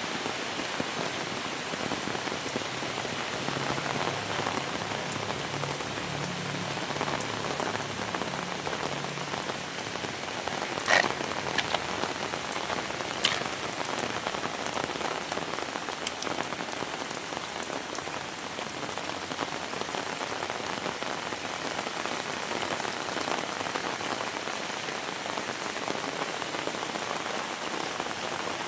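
Heavy rain falling steadily, a dense even patter, with a few sharper taps standing out near the middle.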